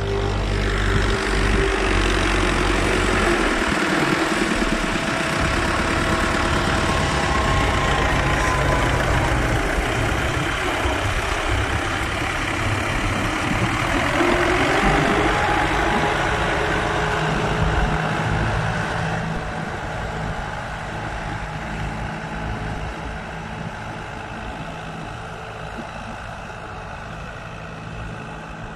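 Fiat 640 tractor's four-cylinder diesel engine running under load as it pulls a disc plough through the soil, loud at first and fading over the last ten seconds as the tractor moves away.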